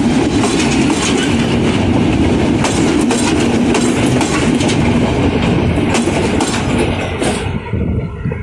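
Passenger train coaches rolling past at close range, their steel wheels clattering over the rail joints in a run of clicks and knocks over a steady rumble, dropping away near the end.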